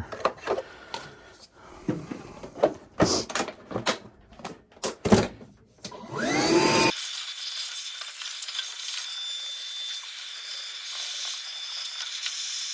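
Clicks and knocks of handling, then about six seconds in a battery-powered vacuum's motor spins up with a rising whine and runs steadily. The vacuum is running again after a bad battery kept it from working.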